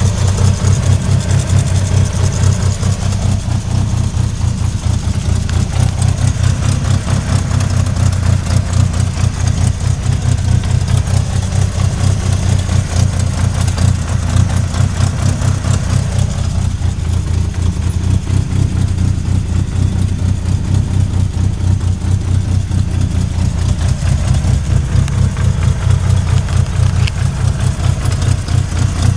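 A 1998 Mitsubishi Eclipse RS's four-cylinder engine running steadily at idle, with a repeating knock that the owner thinks seems to come from the transmission.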